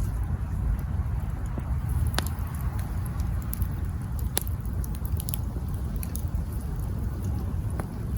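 Wood campfire burning: a low steady rumble with irregular crackles and sharp pops from the burning logs. Louder pops come about two, four and eight seconds in.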